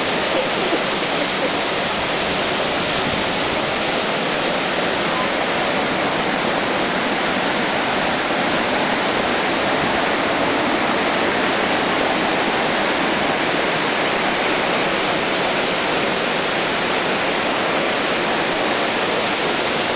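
Waterfall's falling water rushing in a loud, steady, unbroken roar of noise.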